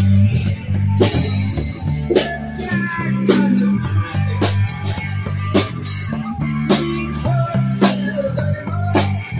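Live street band playing an instrumental blues-rock passage: electric bass line walking through notes under steady drum-kit hits with cymbals, and an electric guitar playing bending lead lines over the top.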